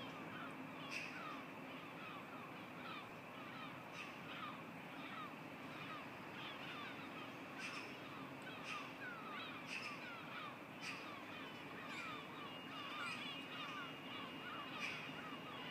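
Birds chirping and calling, with many quick falling chirps and a sharper call about every second or two, over a faint steady high whine.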